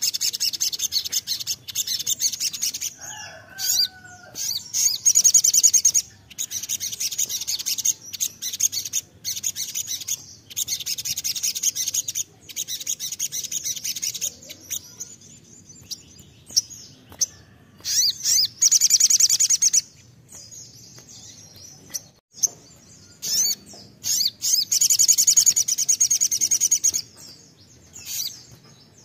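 Caged male olive-backed sunbird singing: rapid, high-pitched twittering phrases one to three seconds long, repeated with short pauses, the fast 'nembak' song of a sunbird in full voice. A few lower whistled notes come in about three seconds in.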